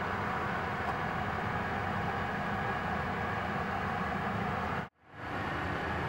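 Fire trucks' diesel engines idling steadily: a low, even rumble under a constant hiss. The sound cuts out abruptly for a moment about five seconds in, then fades back up.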